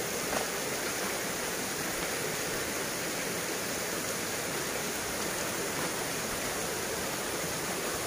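Steady rush of flowing river water in a rocky gorge, fed by a waterfall upstream.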